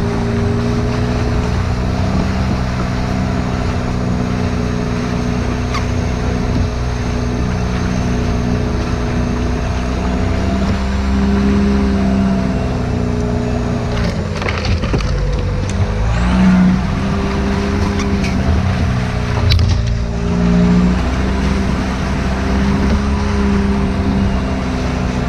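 Suzuki Grand Vitara's 2.0 turbodiesel engine running steadily as the 4x4 crawls along a rutted greenlane. Its revs dip and pick up again twice around the middle, along with a few knocks.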